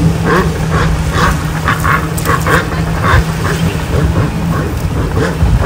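A jet ski engine runs out on the water as a steady low hum that fades away about two-thirds of the way through. Irregular short, higher-pitched bursts sound over it.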